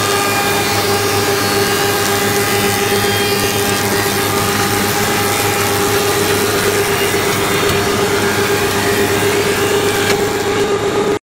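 Reignmac RMM633 heavy-duty four-side moulder running and machining timber, a steady high hum from its spinning cutter heads over the dense noise of wood being cut. The sound cuts off abruptly at the end.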